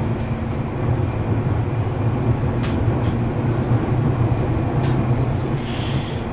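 Commuter train running along the track, heard from inside the car: a steady low rumble with a couple of sharp clicks about two and a half and five seconds in.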